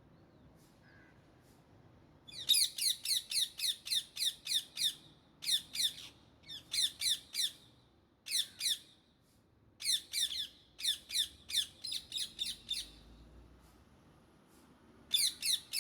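Indian ringneck parakeets screeching: bouts of rapid, repeated harsh calls, each falling in pitch, several a second. The calls start about two seconds in and come in several bursts with short pauses, then begin again near the end.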